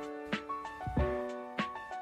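Background music of soft piano notes struck at an even, unhurried pace, each note ringing on as it fades.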